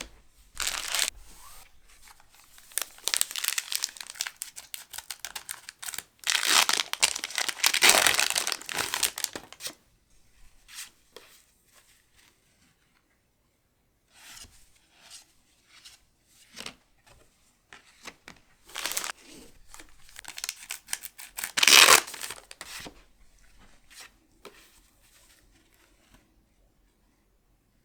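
Foil booster-pack wrappers torn open and crinkled, in two long crackling spells, the second peaking near the end, with sparse small rustles between.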